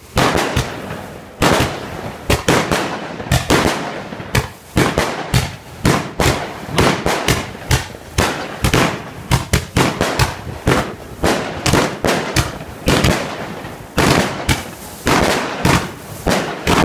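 Fireworks going off without pause: dense, sharp bangs and crackles several times a second, each with a short echoing tail.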